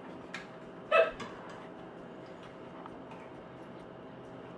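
A person hiccups once about a second in: one short, sharp 'hic'.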